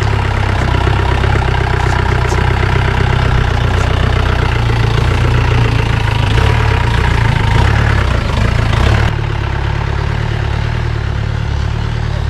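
Jeep engine labouring in four-wheel drive and low gear on a steep off-road climb. It eases off suddenly about nine seconds in and runs on more quietly.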